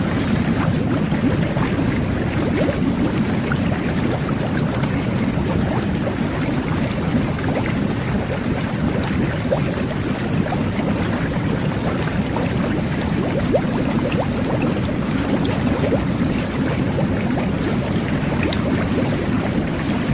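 Whirlpool jet bath running: water jets churning the bathwater in a steady low rush, with small bubbles popping through it.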